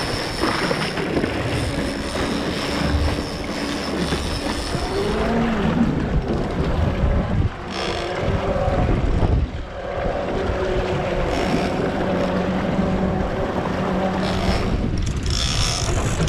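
A fishing boat under way, its outboard motor running, with wind buffeting the microphone and water rushing along the hull.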